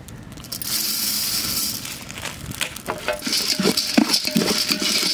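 Cumin seeds poured from a hand onto a steel plate. A hiss of falling seeds comes about a second in, then a dense clatter of seeds clicking and rattling on the metal, with a faint ring from the plate.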